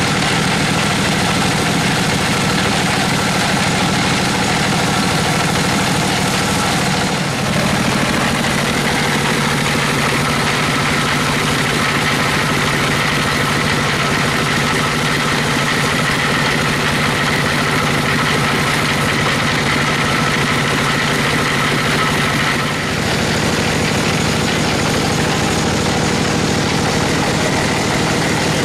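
Stationary Dong Feng diesel engine running steadily, driving the sawmill's bandsaw machinery, with a steady higher whine over its low drone. The mix changes abruptly twice.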